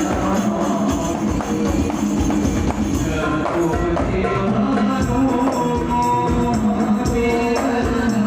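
Shalawat devotional music: rebana frame drums beating a steady rhythm under a held melody.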